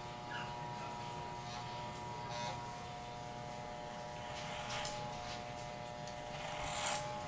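Corded electric hair clippers running with a steady buzz, with short rasping bursts as the blades cut through hair; the strongest rasp comes near the end.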